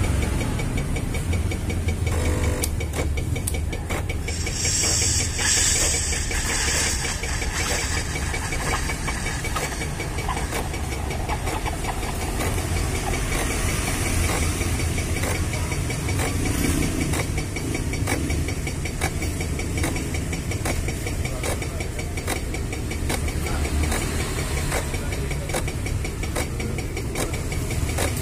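Klaz automatic espresso machine's pump running with a steady low buzz and rattle as it dispenses a latte into a glass cup. A hiss joins in from about four and a half to eight seconds in.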